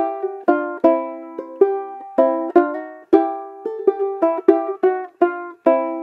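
Banjo ukulele picked in a slow melody, plucked notes and small chords with sharp attacks, about two a second, each ringing and fading. The last note rings on near the end.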